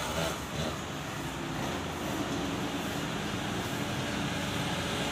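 A vehicle engine running steadily, mixed with street noise.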